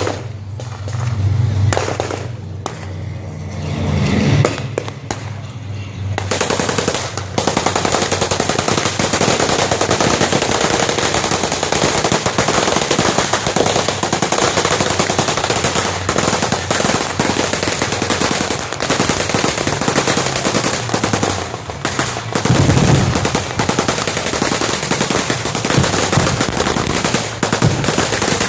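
Anti-aircraft machine guns firing: scattered shots at first, then from about six seconds in, continuous rapid fire that does not let up.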